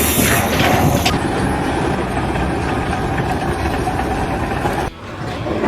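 A vehicle or machine engine running steadily, with a sudden cut to another engine sound about five seconds in.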